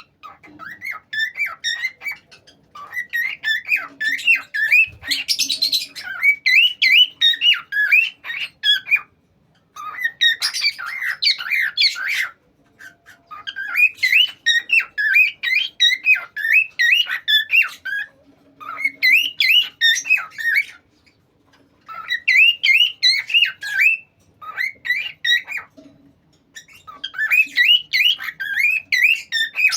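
Parrot calling: rapid, repeated shrill chirps and squawks in bouts of a few seconds, broken by short pauses.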